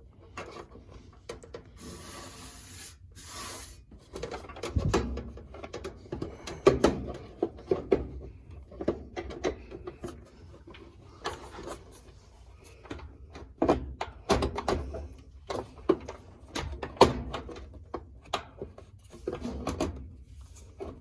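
Irregular knocks, clicks and scraping of a washing machine's control panel being worked back into place, its rear hooked in first and its clips shifted against the cabinet.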